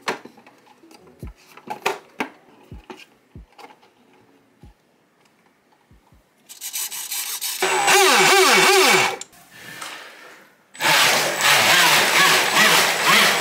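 Scattered clicks and knocks as a 3D-printed plastic deck is fitted onto the boat hull. About six and a half seconds in, the boat's 3660 brushless motor and jet pump spin up with the stern in water, the motor pitch rising and falling with the throttle over a loud hiss of spraying water. It drops off briefly, then runs loud and steady again near the end.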